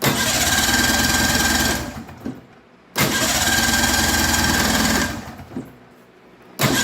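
Snowmobile's twin-cylinder engine turning over on its electric starter in two bursts of about two seconds each, with a third beginning near the end, a fast even chug with a steady starter whine. It cranks without firing even with starting fluid sprayed into the intake; the owner later traces this to a fuel problem.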